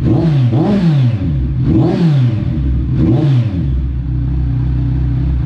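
Kawasaki Ninja 1000's inline-four engine revved through an SC Project titanium exhaust: three quick throttle blips, each rising and falling in pitch, then settling to a steady idle near the end.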